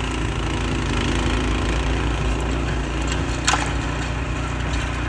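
Walk-behind gas snowblower running steadily under load as it throws snow, with a single sharp click about three and a half seconds in.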